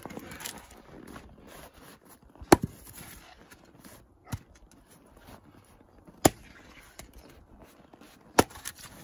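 A short-handled, welded spring-steel axe chopping into firewood rounds and splitting them. There are three sharp, loud chops a few seconds apart, with a lighter knock between the first two.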